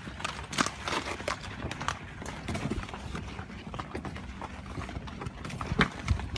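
Horse hooves walking on wet gravel and mud in an irregular clip-clop, with a couple of louder hoof knocks near the end. A vehicle engine runs low and steady underneath.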